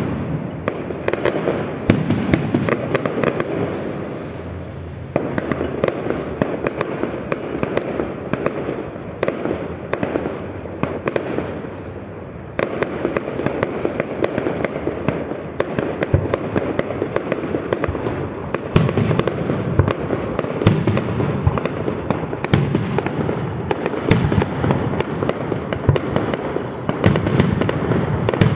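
Aerial fireworks shells bursting in quick succession: a dense, continuous barrage of bangs and crackle that eases briefly twice and picks up again, with heavier bangs in the second half.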